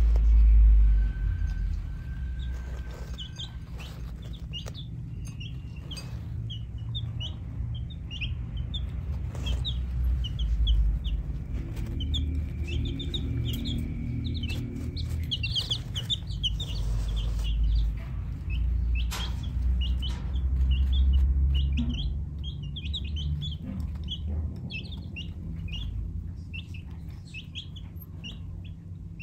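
Baby chicks peeping: many short, high chirps in quick succession, over a low rumble.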